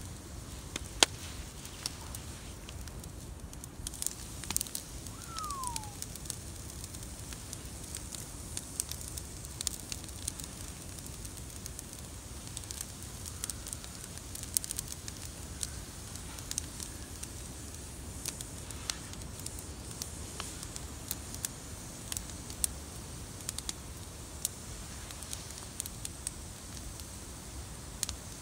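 Wood campfire burning under a spit-roasting joint of beef, crackling with frequent sharp pops and snaps over a steady low noise. A single short falling whistle sounds about five seconds in.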